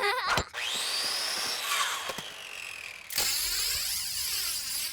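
Cartoon sound effects of painting tools at work: a whirring hiss whose pitch rises and then falls, then a louder, steady spray hiss from about three seconds in.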